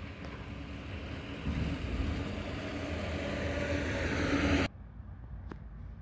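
Mack McNeilus front-loader garbage truck's diesel engine running and revving up, growing louder over a few seconds, then the sound cuts off abruptly about three-quarters of the way through.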